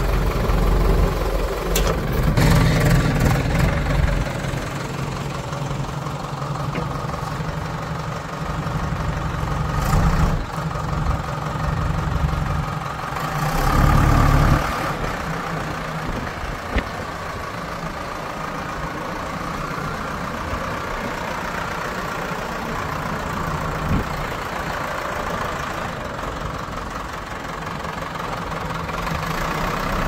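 Diesel engine of heavy earth-moving machinery running, surging louder several times (near the start, around ten seconds in and for a couple of seconds about halfway) before settling back to a steady run. A few sharp clicks are heard along the way.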